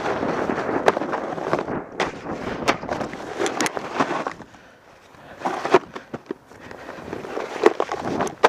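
Snowboard sliding and scraping over crusty snow, with scattered sharp knocks and clacks from the board. The scraping drops away briefly about halfway through, then picks up again.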